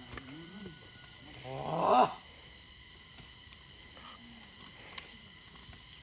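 Steady chorus of insects buzzing and chirping, with one short, loud rising vocal call about two seconds in.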